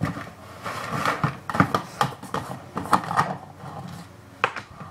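Glass jar and its screw lid being handled: the lid twisted off, with a string of irregular clicks, knocks and rustles.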